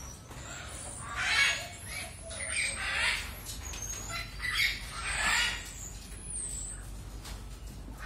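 Caged parrots squawking, about four loud rough calls spread over the first six seconds, with thin high whistles falling in pitch from other birds in between.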